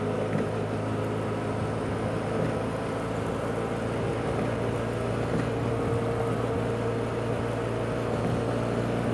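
BMW F800GS parallel-twin engine running at a steady cruise, a constant drone that holds one pitch, over a steady rush of wind and road noise.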